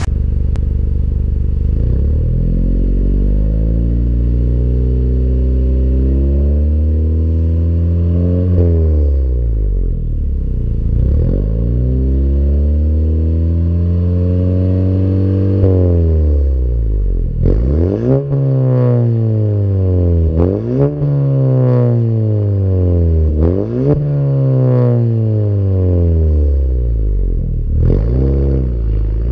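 Honda Civic 1.5-litre turbocharged four-cylinder running through an aftermarket stainless cat-back exhaust and downpipe, heard at the tailpipes. It idles steadily at first, then is revved slowly up and down a few times, then given a run of quick, sharp throttle blips that rise and fall back to idle.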